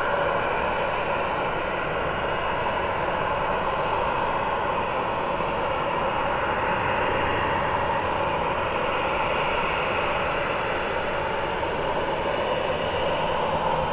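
Boeing 737-900ER's twin CFM56-7B turbofan engines running steadily at low taxi power as the airliner taxis: an even jet rush with a whining tone.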